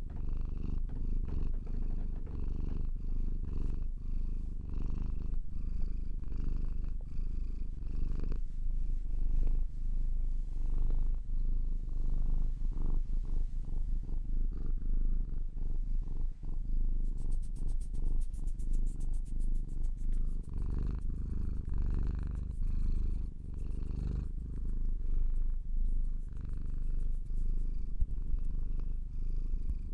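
Domestic cat purring, a continuous low rumble.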